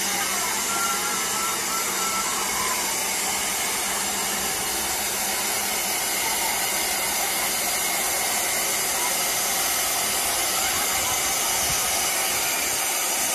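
Taiwan Railway DT650-class steam locomotive DT668 giving off a steady, loud hiss of escaping steam.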